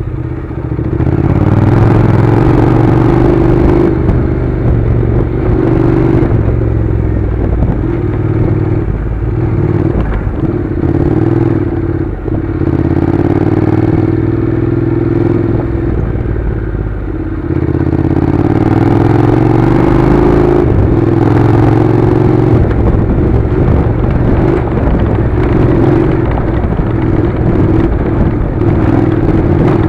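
Honda NC700's parallel-twin engine running at low to middling revs on a rough gravel track, with stones clattering under the tyres. The revs dip briefly about twelve seconds in and again around seventeen seconds in.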